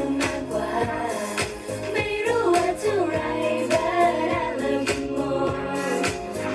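Amplified pop song over a PA: several female voices singing a melody over a backing track with a steady drum beat.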